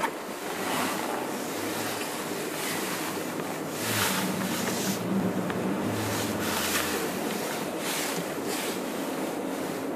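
Wind rushing in gusts, a steady noise that swells and falls about every second.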